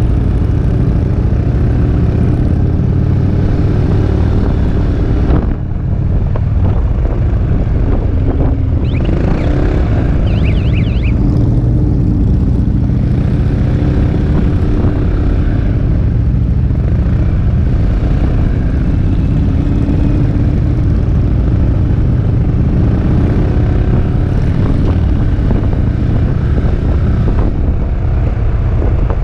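Wind rushing over the camera over the steady running of a Peugeot Métropolis three-wheeled scooter's engine while riding, with a brief drop in loudness about five seconds in.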